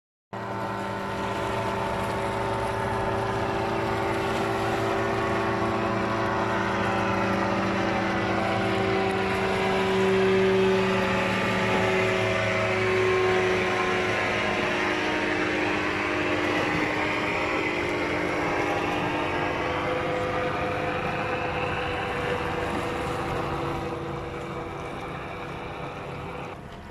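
Motorboat engine running steadily, louder around the middle and easing off near the end.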